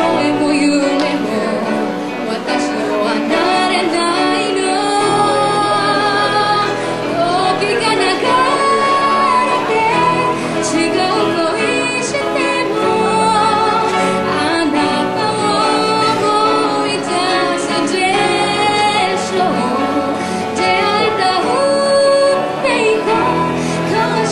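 A woman singing a song with instrumental accompaniment, continuously and at a steady level.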